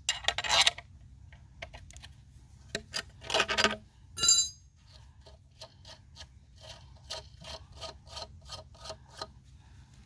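Metal spanner working a nut on a threaded bolt set into a wall: scraping and rubbing strokes, one ringing metallic clink about four seconds in, then a run of short clicks, about three a second, as the nut is turned.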